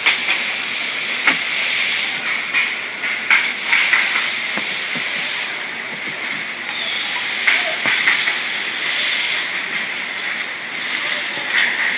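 A large cardboard shipping carton being opened by hand: flaps scraping and knocking, and plastic wrapping crinkling, over a steady hiss.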